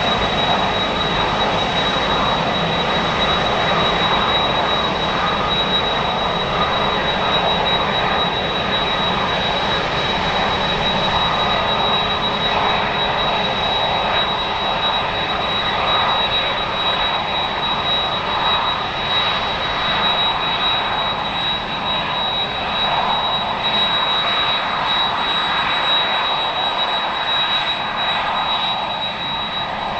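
Airbus A350-941 airliner's Rolls-Royce Trent XWB turbofan engines running: a steady rush of jet noise with a thin, high, steady whine over it, easing slightly near the end.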